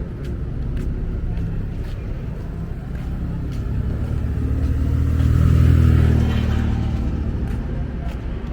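Race car engine rumbling at low revs as it moves past, growing louder to a peak about six seconds in, then fading.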